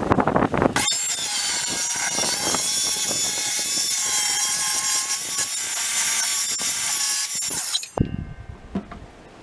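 Cordless power saw plunge-cutting a slot: a few clicks at first, then the saw cuts steadily with a high, gritty whine for about seven seconds and stops near the end, winding down.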